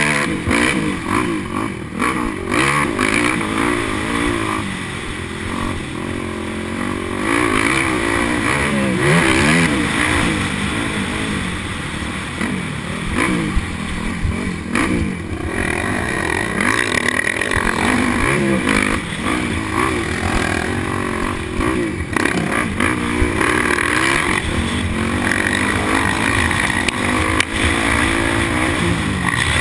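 Motocross dirt bike engine revving up and down over and over as the rider accelerates and backs off around the track, heard from the rider's helmet camera over wind noise.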